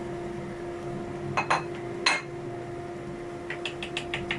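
Wooden spatula knocking against a wok, three sharp knocks about a second and a half in, then a quick run of light taps near the end as the sauce in the wok is stirred. A steady hum from the kitchen fan runs underneath.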